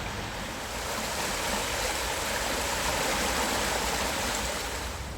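Floodwater rushing steadily, a continuous even rush of fast-flowing water.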